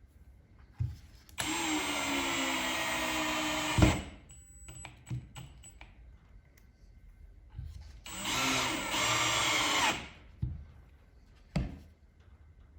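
Power drill run twice, each time for about two and a half seconds under load, with a knock as the first run stops and a few light clicks between the runs.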